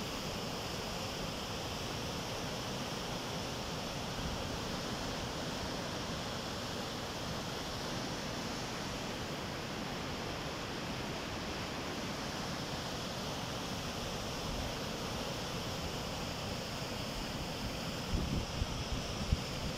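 Muddy river in flood rushing past in a continuous torrent, a steady, even rushing noise. A few low thumps near the end.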